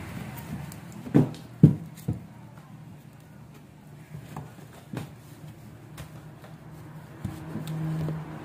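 Banana leaves being handled and folded by hand while wrapping rice cakes, with a few sharp knocks on the table between one and two seconds in and a softer one about five seconds in. A low hum comes up near the end.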